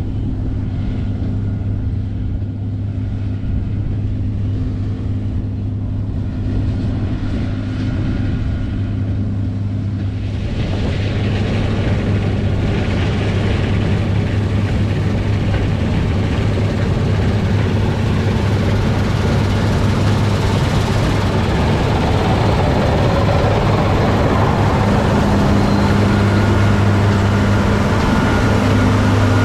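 Large diesel farm machine running steadily with a strong low engine hum. About ten seconds in, a broad rushing, mechanical noise comes in on top and grows slightly louder.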